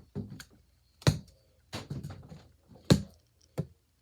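Slime being handled: four sharp taps and knocks with softer crackling between them.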